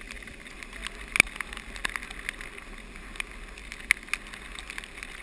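Steady hiss of storm wind and rain, with a few sharp ticks scattered through it.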